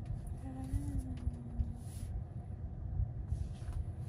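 Low steady rumble of an SUV driving past in an underground parking garage, heard from inside a car, with brief swells of hiss.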